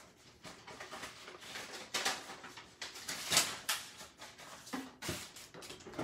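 Paper envelope being handled and opened and a card slid out of it: paper rustling in several short bursts, the loudest about halfway through.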